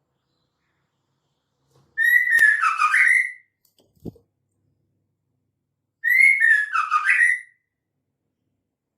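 Female white-rumped shama calling: two short whistled phrases about four seconds apart, each a quick run of gliding notes lasting about a second and a half. A soft low thump falls between them. This is the female's call that keepers play to provoke male shamas into singing.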